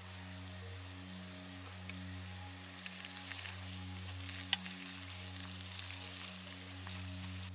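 Potato chunks sizzling as they fry in a metal pan over a campfire, with a steady hiss and small crackling pops that get busier from about three seconds in. Near the end a wooden spatula stirs them.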